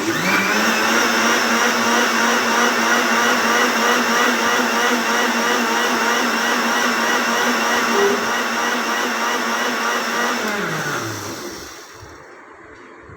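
Electric blender jar blending a cold coffee mix of milk, coffee, sugar and ice cream: the motor starts at once and runs steadily at high speed for about ten seconds, then is switched off and spins down with falling pitch.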